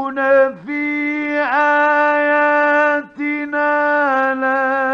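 Male Qur'an reciter chanting in the ornate mujawwad style, holding long, steady melodic notes, with two short breaks, in an old Egyptian radio recording.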